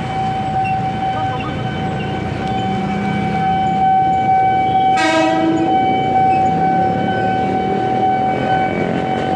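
Motorcycle street traffic running over a steady whining tone, with one horn blast lasting under a second about five seconds in.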